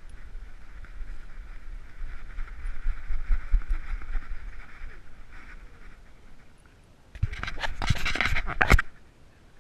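Dog panting right at a head-mounted GoPro HERO3. About seven seconds in, a second and a half of loud scraping and rustling against the camera.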